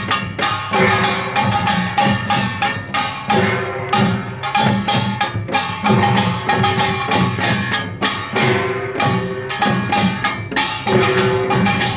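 Korean pungmul percussion band playing: fast, dense strikes of small hand gongs with a ringing metallic tone over steady drumbeats from janggu and buk drums, in a driving rhythm.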